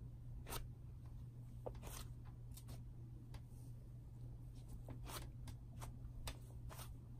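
Silk Slimers cloud slime being squeezed, stretched and pulled apart by hand, giving soft scattered crackles and little tearing snaps, about a dozen in seven seconds, over a faint low steady hum.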